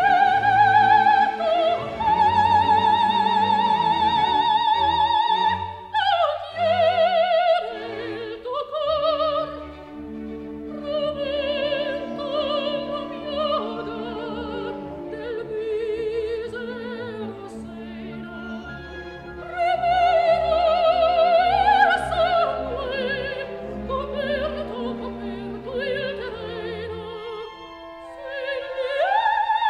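Operatic singing over orchestral accompaniment: a voice holding long notes with a wide vibrato, sliding between pitches.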